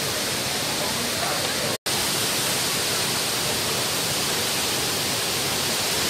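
Shifen Waterfall's falling water making a steady, even rush. The sound cuts out for an instant about two seconds in.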